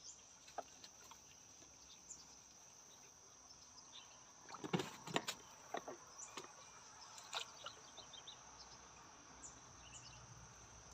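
A steady high insect trill, with scattered clicks, drips and splashes of river water from a bamboo-framed lift net as it is let down into the water, thickest about halfway through.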